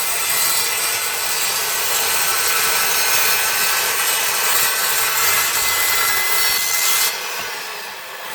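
Guild 1400 W 185 mm circular saw cutting through a piece of hard flooring, running steadily under load. About seven seconds in the sound drops and then fades as the cut ends.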